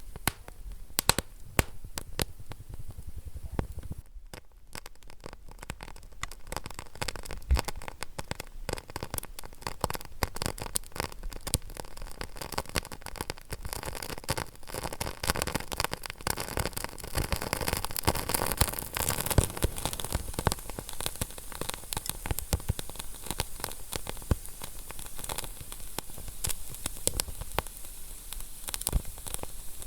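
Wood fire in a fireplace crackling: irregular sharp pops and snaps over a steady hiss, with a brief lull about four seconds in.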